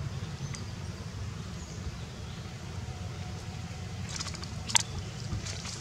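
Steady low rumble of outdoor background noise, with a few sharp crackles and clicks near the end as a young monkey walks over dry leaves on mossy stone.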